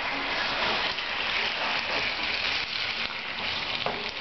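Chicken pieces and sliced onions sizzling in a hot frying pan as they are stirred with a wooden spatula: a steady, even hiss.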